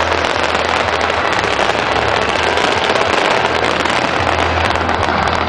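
Fireworks going off in a dense, continuous crackle of rapid small pops, steady and loud throughout.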